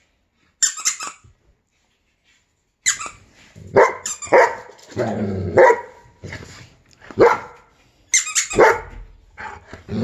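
A high squeaky sound about half a second in, then a schnauzer barking in a run of about half a dozen loud barks, with another short burst of squeaks just before the last bark.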